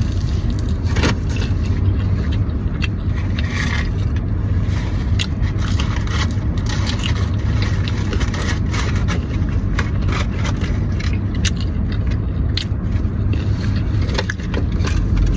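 Steady low road rumble inside a moving car's cabin, with scattered rustles, clicks and scrapes from handling fast food and its packaging.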